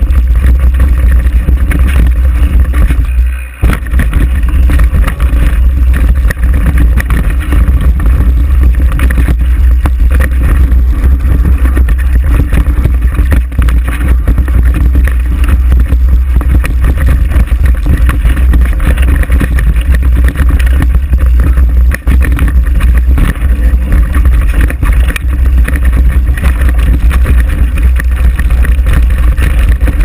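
Wind buffeting a GoPro's microphone during a fast mountain-bike descent, a heavy, steady rumble mixed with the noise of tyres and bike on a rough dirt trail. The rumble dips briefly about three and a half seconds in.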